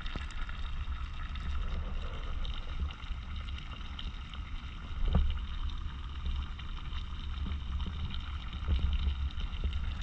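Steady low rumble of wind buffeting the microphone, with a faint even hiss above it.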